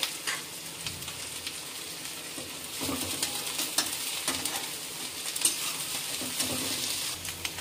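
Sliced vegetables (cabbage, capsicum, carrot, onion) sizzling in hot oil in a kadhai over a high gas flame, with a steady hiss. A metal spatula stirs and scrapes against the pan in short, irregular strokes throughout.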